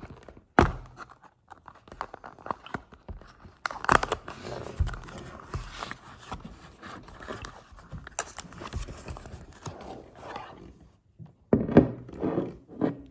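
Cardboard perfume-style packaging being opened by hand: a sharp snap about half a second in, then a long stretch of sliding, scraping and rustling as the card box and its paper insert are worked apart. Near the end come a few louder knocks and scrapes as the glass bottle is handled on a wooden table.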